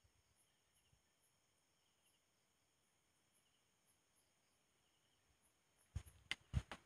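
Faint night insects chirping in a regular pattern over near silence. Near the end, a quick run of about four sharp knocks.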